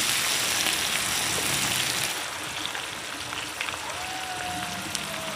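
A frying pan of freshwater mussels and vegetables sizzling in oil over a wood fire: a steady hiss with small crackles, a little quieter from about two seconds in.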